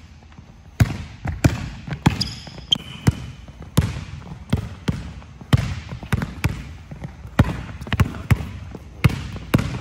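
A basketball being dribbled hard on a hardwood gym floor, about two bounces a second, each bounce echoing around the hall. A brief high sneaker squeak comes a couple of seconds in.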